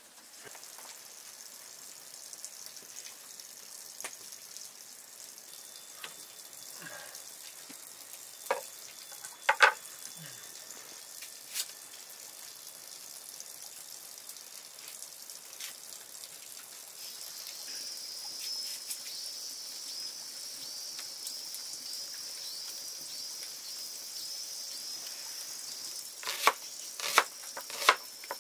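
Food frying in hot oil in a pan, a steady sizzle that grows louder a little past halfway. A stirring utensil knocks against the pan now and then, with a quick run of knocks near the end.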